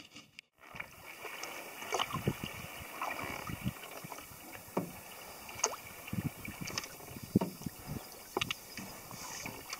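Paddling an ultralight pack canoe: the paddle dips and splashes at an irregular pace, with scattered small knocks and drips over a faint wash of water and wind.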